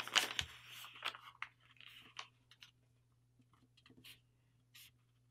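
A sheet of paper being folded and creased by hand: a rustle of paper in the first second or so, then scattered faint taps and rubs as the crease is pressed.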